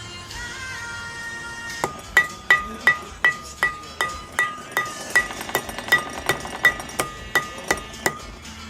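Hammer tapping repeatedly on a steel part of a wheel hub assembly, about three strikes a second. Each strike rings at the same clear pitch.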